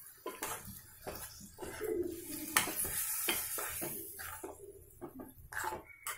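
A spoon stirring a watery vegetable curry in a metal pot, clinking and scraping against the pot in irregular knocks.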